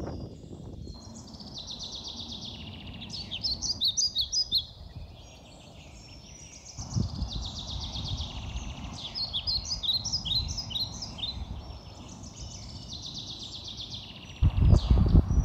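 Small birds chirping and trilling, with quick runs of high notes, over a low rumble that grows much louder near the end.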